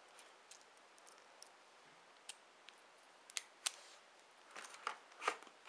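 Faint, scattered sharp clicks and ticks of a plastic Bluetooth headset and its clear plastic packaging tray being handled, with two louder clicks close together past the middle and a few more near the end.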